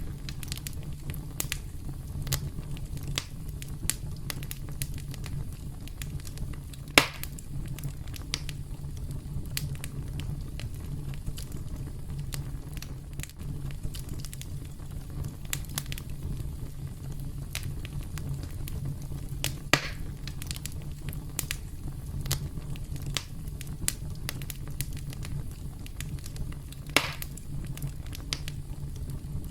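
Campfire burning with a steady low rumble and frequent irregular crackles, with three louder pops and snaps standing out.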